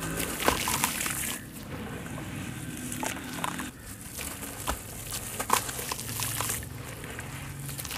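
Hands squeezing and crumbling wet sand-cement chunks in a plastic tub of water: gritty crunching with repeated splashes and sloshing as the crumbled sand drops back into the water.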